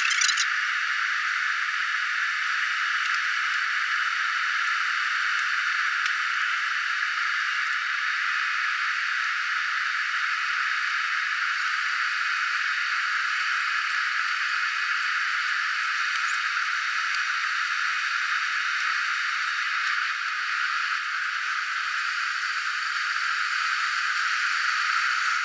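Steady rushing cabin noise of an airliner descending on approach, airflow and engine noise blended into an even hiss that sounds thin, with no low rumble.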